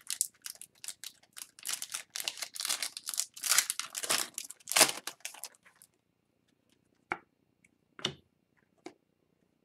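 Foil wrapper of an O-Pee-Chee Platinum hockey card pack being torn open and crinkled for about five and a half seconds, then three short taps as the cards are handled.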